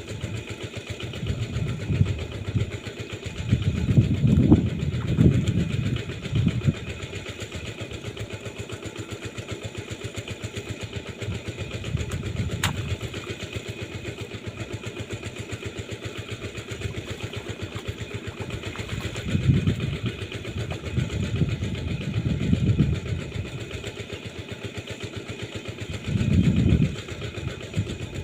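A small engine running steadily at low speed, with louder low rumbles a few times, about two seconds in, around four to seven seconds in, near twenty seconds in and close to the end, and one sharp tick about halfway through.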